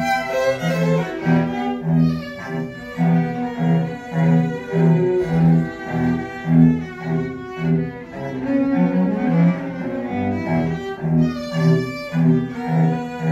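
A live string ensemble of violins, viola and cello playing, the cello repeating short low notes about twice a second under the violins' melody.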